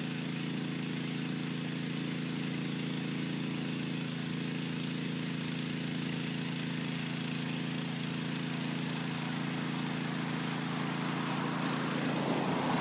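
Small gasoline engine of a sewer jetter running steadily at a constant speed, a continuous drone with a hiss above it.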